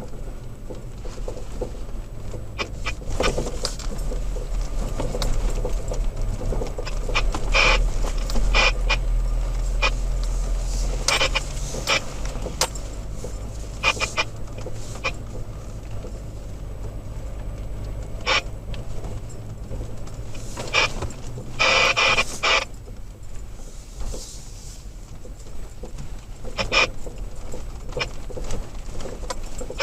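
Third-generation Toyota Tacoma driving off-road, heard from inside the cab: a steady low engine and road rumble with irregular knocks, clicks and rattles from the rough track. Two longer bursts of noise come about two-thirds of the way in and near the end.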